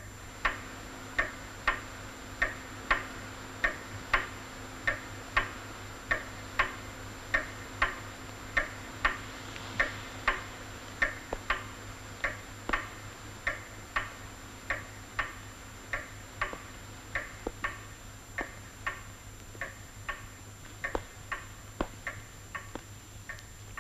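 Pendulum wall clock ticking steadily, an even tick-tock at about three beats every two seconds.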